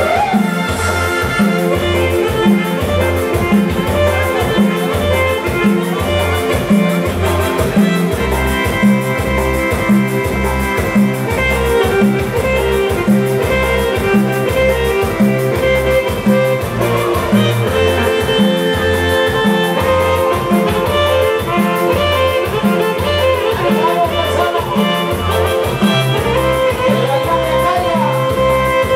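Regional dance band music: a steady bass beat under long held melody lines.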